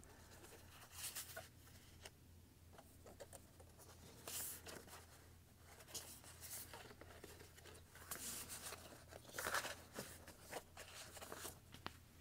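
Faint rustling and sliding of stiff paper art prints handled by hand, in short scattered bursts.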